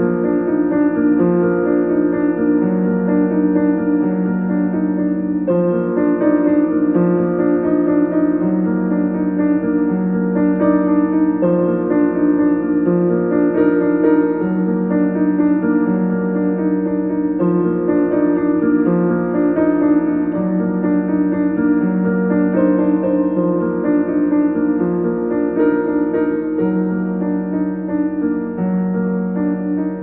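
Solo piano playing a melody over held notes and a repeating pattern of lower notes.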